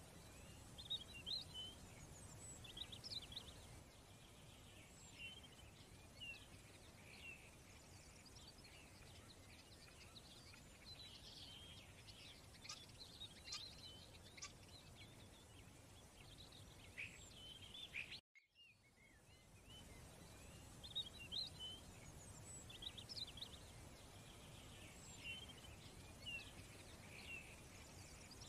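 Faint bird chirping over a low steady hiss. It cuts out briefly about eighteen seconds in, then the same run of chirps starts over, as a looped ambience track does.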